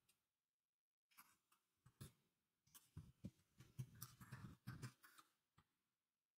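Faint typing on a computer keyboard: a run of quick keystrokes starting about a second in and stopping near the end.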